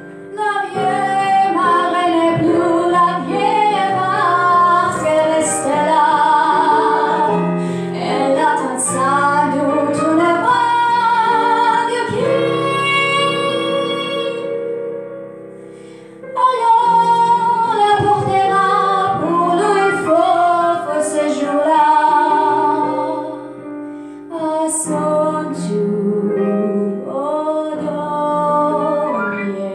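A woman sings a slow song in Russian to digital piano accompaniment, holding notes with vibrato. A long held note comes about halfway through, followed by a brief lull before she comes back in strongly.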